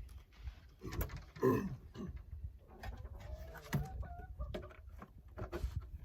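Chickens clucking and calling, several short calls, the loudest one falling in pitch about a second and a half in, with scattered knocks and clicks among them.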